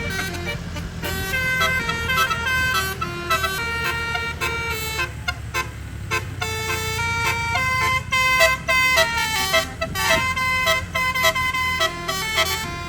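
Bus telolet horn with 18 trumpets and 18 notes playing a quick melody, its tones stepping rapidly from one note to the next, over the steady running of the bus's engine.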